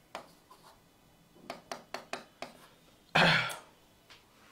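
Marker pen tapping and scraping on a whiteboard in a few short strokes, then a man clears his throat once just after three seconds in, the loudest sound.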